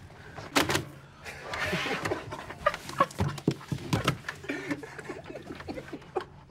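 Several men holding back laughter: short snickers and breathy bursts through closed mouths, with a few sharp clicks and smacks among them.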